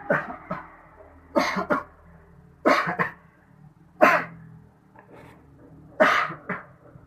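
A person's staged coughing fit, faked for a prank: five harsh bouts of coughing, most of them two coughs in quick succession.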